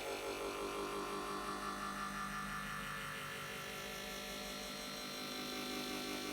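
A pouring-water-into-a-glass sound effect layered on top of itself many times over, merging into a dense, steady drone with a humming, buzzing quality rather than the sound of a single pour.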